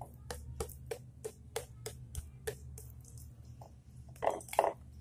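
A raw whole chicken coated in wet marinade being pricked over and over: short soft wet pricks, about three a second for the first three seconds, then two louder squelches about four seconds in. A steady low hum runs underneath.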